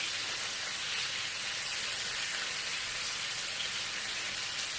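Flour-dusted onion rings frying in hot bacon fat, sizzling steadily in the pan.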